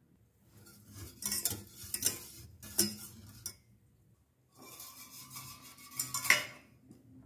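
Wire whisk stirring a liquid mix in a stainless steel saucepan, scraping and clinking against the metal sides in two bouts, with a few sharper clinks.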